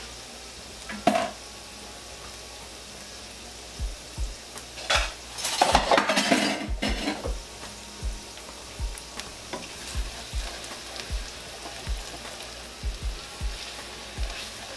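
Hot vegetable oil sizzling steadily in a skillet around freshly added flour, the start of a roux. A louder clatter comes around the middle, then soft knocks about once or twice a second, and a spoon starts stirring the flour into the oil near the end.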